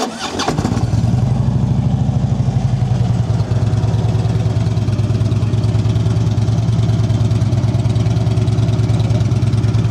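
2009 Harley-Davidson Road King Classic's 96-cubic-inch V-twin with Rinehart slip-on mufflers, catching just after the starter and running a little faster for the first three seconds or so, then settling into a steady idle.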